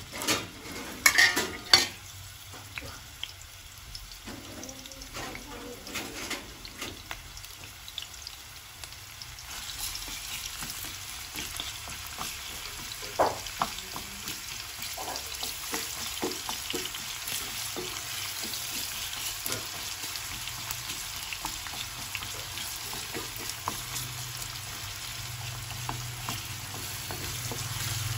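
Chopped onions frying in oil in a non-stick pan while a wooden spatula stirs them. There are a few sharp knocks near the start and small scrapes and taps throughout. The sizzle grows steadily from about a third of the way in as the oil heats the onions.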